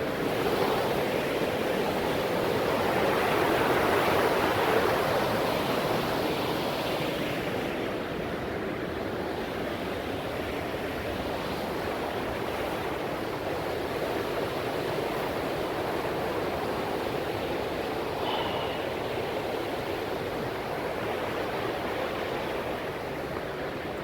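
Steady rushing of white water from the Cauldron Snout cascade on the River Tees, swelling slightly a few seconds in.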